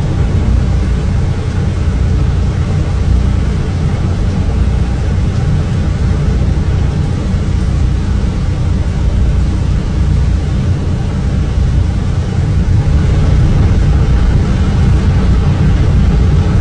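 Storm wind rumbling hard, a loud steady roar heavy in the bass, growing a little louder near the end.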